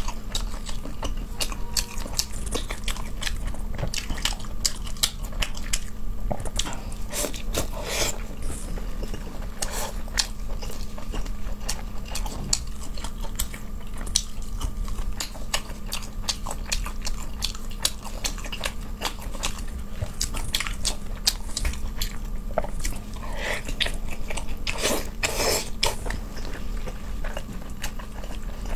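Close-miked ASMR eating sounds of soft fish being bitten and chewed, with many short mouth clicks and smacks spread irregularly throughout.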